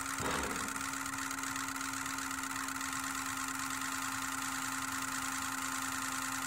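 Injectors of a 2003 Ford F350's 6.0-litre Powerstroke diesel pre-cycling at key-on, engine off: a rapid, even mechanical clatter from all the injectors, with a steady hum beneath it.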